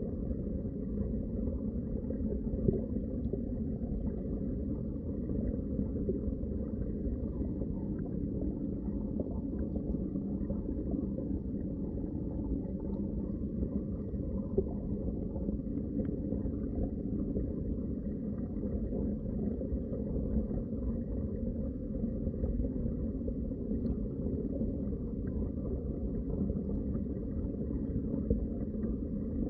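Underwater water ambience: a steady, muffled low rumble and gurgle of moving water, with a couple of faint clicks.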